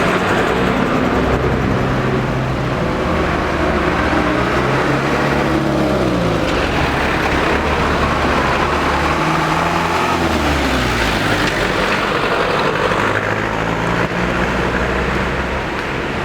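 Large bus diesel engines running, their pitch rising and falling a couple of times as they rev and pull through.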